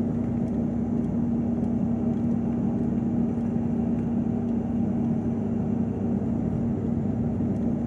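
A vehicle running at a steady pace, a constant engine and road drone with a steady low hum.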